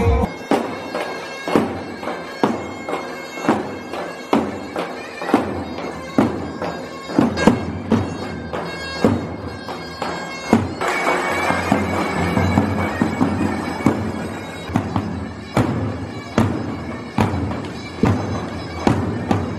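Davul and zurna playing a halay dance tune live: the zurna's held, reedy melody over a steady beat of heavy davul drum strikes, about one to two a second.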